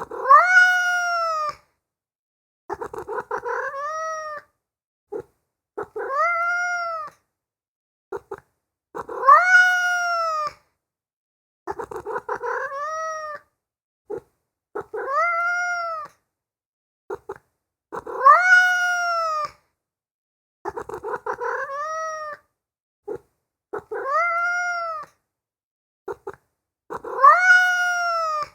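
Domestic cat meowing repeatedly: about ten drawn-out meows, roughly one every three seconds, each rising then falling in pitch. Some start with a short stuttering onset, and the same run of three meows repeats.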